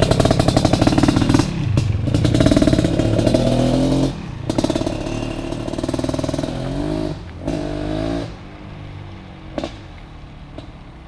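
Husqvarna TE 250 dirt bike with a freshly installed BRC 500 engine kit accelerating away. The revs climb and drop back three times, and the engine grows faint after about eight seconds as the bike gets further off.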